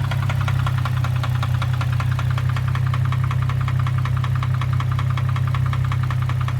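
Infiniti G35's 3.5-litre V6 running at idle with a loud, rapid, even knocking, about nine or ten knocks a second over a steady engine hum. The owner suspects rod knock from a spun bearing.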